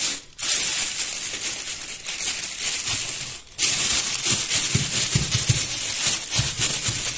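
Dry sawdust being poured and spread by hand across the floor of an egg incubator box: a continuous dry rustling hiss, broken briefly near the start and about halfway through, with some soft low knocks in the second half.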